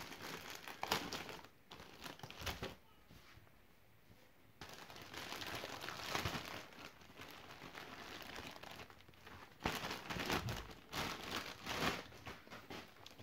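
Plastic mailing bag and packaging crinkling and tearing as hands pull it open, in irregular rustling bursts with a quieter pause about three seconds in.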